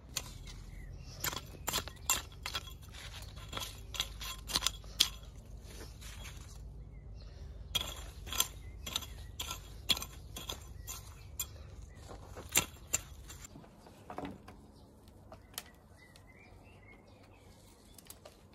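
Green bean pods being picked off the plants by hand: a run of sharp, irregular snaps and leaf rustles, a few a second, stopping about 13 seconds in. A bird chirps faintly near the end.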